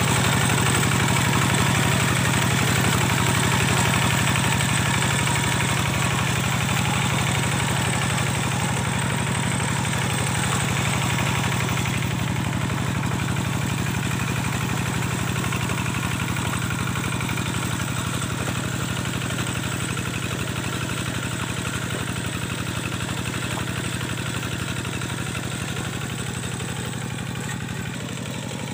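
Kubota diesel engine of a paddy-field levelling machine running steadily, slowly growing quieter.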